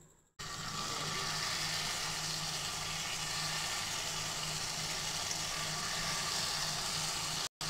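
Jalebi batter sizzling as it is piped into hot vegetable oil in a frying pan, a steady hiss starting about half a second in, with a low hum underneath.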